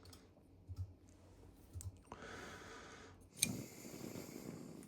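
Light clicks and rustling from a small hand tool and its parts being handled, with one sharper click about three and a half seconds in.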